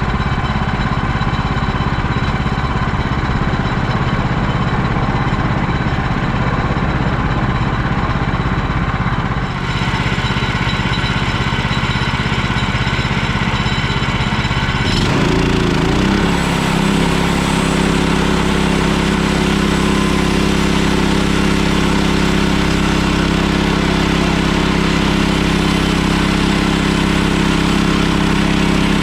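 Portable band sawmill's gasoline engine running steadily. About 15 seconds in, its note rises and then holds higher and steadier.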